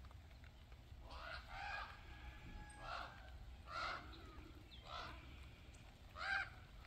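A bird calling: five short, harsh, ringing calls spaced about a second apart, the last the loudest.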